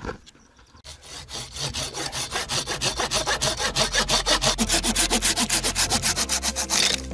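Hand saw cutting through wood with quick, even strokes, several a second. The sawing starts about a second in, grows louder and stops abruptly near the end.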